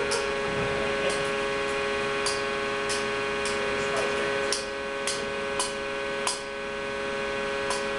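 About ten sharp, light taps at uneven intervals of a metal hand tool striking a crushed concrete test cylinder, over a steady machine hum.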